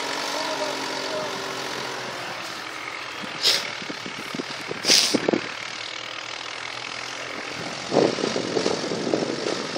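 Tractor engine running as it pulls a plough through rice stubble, its tone fading over the first two seconds as it moves off. Two brief hissing bursts come about three and a half and five seconds in, and a crackling rustle sets in near the end.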